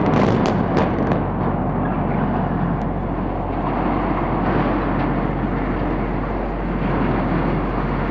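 Explosive demolition of steelworks structures. A few more sharp cracks from the demolition charges come in the first second, then a long, loud rolling rumble as the blasts echo and the towers come down.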